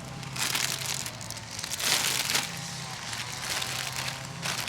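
Crinkling and rustling of wrapping being handled, in three bursts: about half a second in, around two seconds in, and near the end, over a steady low hum.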